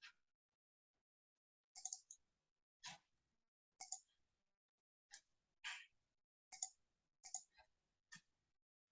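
Faint computer mouse clicks, about ten at uneven gaps, some in quick pairs.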